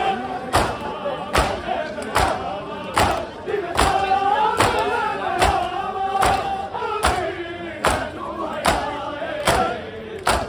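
Shia mourners' matam: a group chanting a mourning lament (nauha) in long, wavering sung lines, over sharp, evenly paced matam strikes about every 0.8 seconds.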